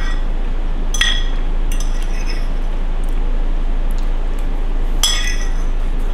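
A metal utensil clinking against a dish while eating: two sharp ringing clinks, about a second in and near the end, with a few faint taps between. Under them is a steady hiss.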